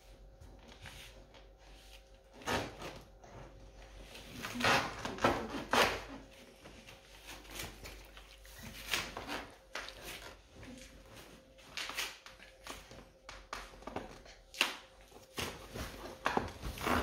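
Irregular knocks, rattles and rubbing from a travel playpen's frame and fabric-covered rail as a baby grips and pulls on it, loudest in a cluster a few seconds in.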